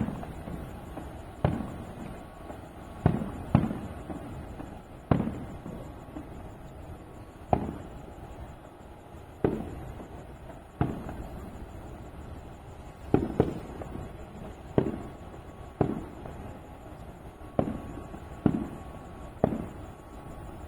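Aerial firework shells bursting: a run of about fifteen booms, one every second or two, each dying away over about a second.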